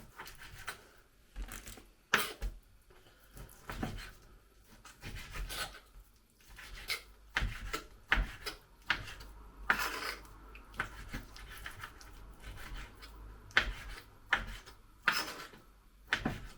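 Knife cutting raw chicken into cubes on a chopping board: irregular knocks of the blade on the board, roughly one every second or two, with softer rubbing and sliding of the blade and meat in between.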